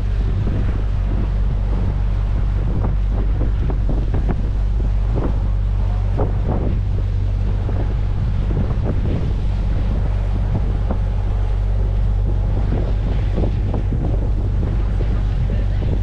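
Canal tour boat's motor running with a steady low hum, with wind buffeting the microphone.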